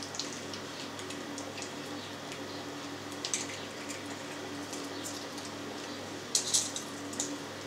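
Pork mince being forced from a vertical piston sausage stuffer into a collagen casing, packed tight: a few short wet squishing crackles about three seconds in and again near the end, over a steady low hum.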